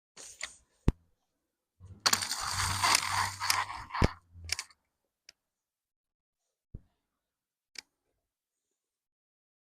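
Handling noise of plastic toys and their packaging: a few sharp clicks and knocks, with a burst of rustling and rattling lasting about two seconds, a couple of seconds in.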